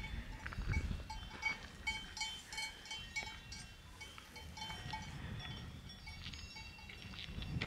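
Cowbells on grazing cows clanking irregularly, several bells of different pitches ringing out in short, uneven strokes.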